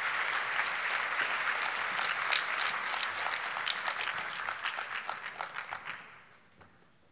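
Audience applause, a dense patter of many hands clapping that thins out and dies away about six seconds in.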